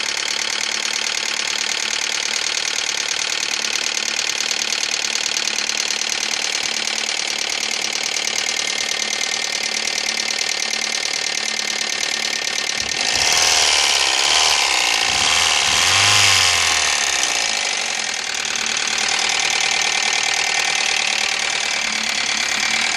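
2000 Ford Focus 2.0-litre four-cylinder engine running with a fast, steady ticking-knocking noise of unknown cause. It is revved for a few seconds about 13 seconds in, then drops back to idle, still ticking.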